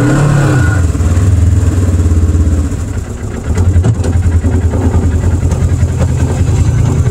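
Polaris RZR side-by-side's engine idling, with a short rev right at the start and a brief drop in loudness about three seconds in.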